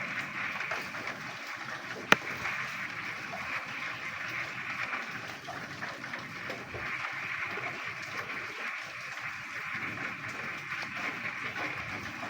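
A dense chorus of frogs calling in the rain, a steady mass of overlapping croaks mixed with rainfall. A single sharp click about two seconds in is the loudest moment.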